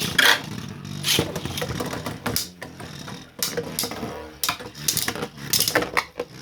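Two 3D-printed plastic beyblades spinning and clashing in a stadium: a steady spinning buzz broken by many sharp clicks and knocks as they collide and scrape.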